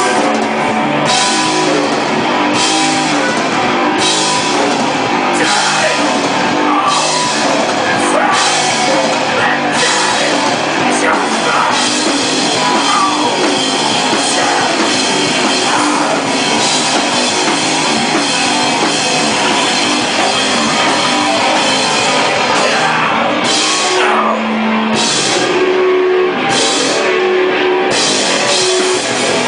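A hardcore rock band playing live and loud, with electric guitar and a drum kit keeping a driving beat.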